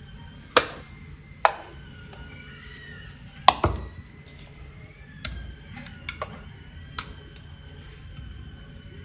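Sharp knocks and taps of peeled red onions dropped into a plastic food container, and of the container and its lid being handled beside a ceramic bowl. The loudest come about half a second in, a second and a half in, and a close pair about three and a half seconds in, with lighter taps after.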